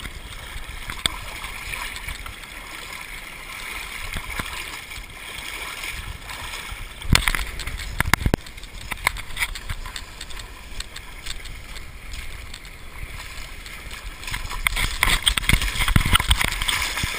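People wading and splashing through shallow swamp water and wet grass, heard close on a body-worn camera's microphone, with two sharp knocks past the middle and louder splashing near the end.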